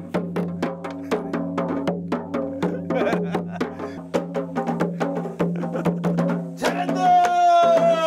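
A janggu, the Korean hourglass drum, beaten with a stick in quick, uneven strokes over a steady droning tune. Near the end a long held note comes in.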